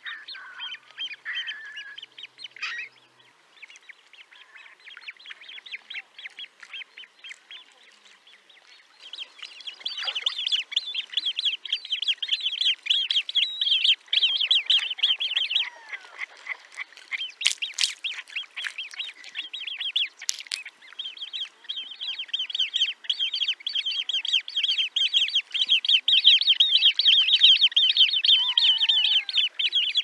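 Great crested grebe juvenile begging calls: a rapid, unbroken stream of high piping notes, fainter at first and much louder from about a third of the way in.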